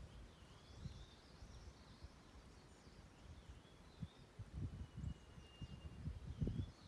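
Faint outdoor birdsong: thin, wavering high whistles and a couple of briefly held notes. Under it an uneven low rumble of wind on the microphone grows stronger in the second half.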